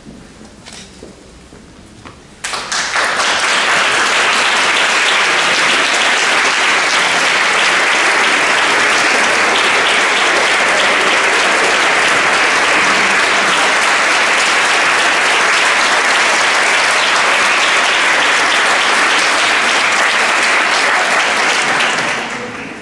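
Audience applauding: the clapping breaks out about two and a half seconds in, holds steady, and dies away near the end.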